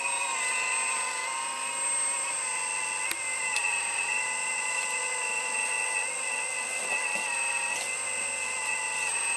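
Earth Digger 4200 XL radio-controlled excavator's electric hydraulic pump whining steadily while the bucket is worked, its pitch dipping slightly now and then under load. A light click about three seconds in.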